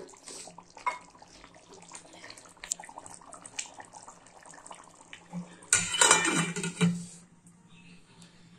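Chicken in a thin yogurt gravy simmering and bubbling in an aluminium pot, with small ticks and pops. About six seconds in, a loud metal clatter of about a second as the steel lid is set on the pot.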